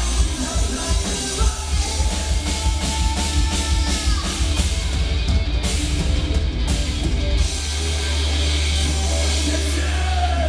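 Live band playing a heavy metal song: loud distorted band sound with fast drumming. About seven and a half seconds in, the drumming stops and a final chord is held and rings on steadily.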